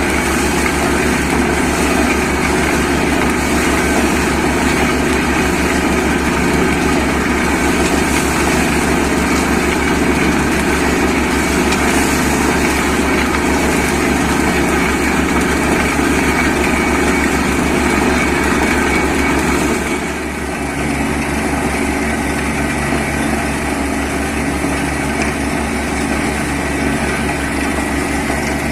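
Borewell drilling rig's engine and air compressor running steadily, with a hiss above the engine note. About two-thirds of the way through, the sound dips briefly and then runs on a little quieter with less hiss.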